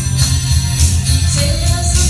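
Loud pop-rock music with a heavy bass and a steady beat of drum and cymbal strokes, played live for a singer; a single sung phrase comes in briefly near the end.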